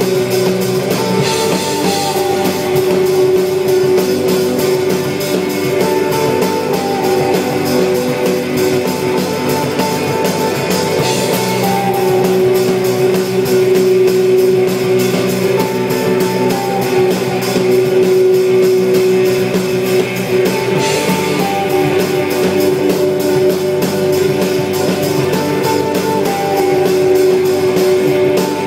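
Live rock band playing: electric guitar over a drum kit at steady full volume. A sustained guitar note carries through, with a short two-note figure coming back every few seconds over an even drum beat.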